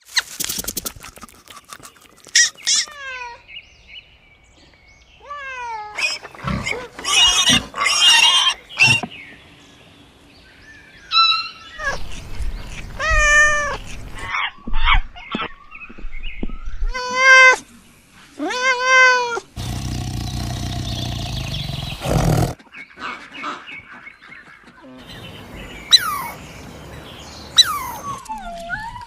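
Farm animals calling one after another: a run of separate loud pitched cries, several sliding down in pitch, and a harsh, noisy call lasting about three seconds past the middle.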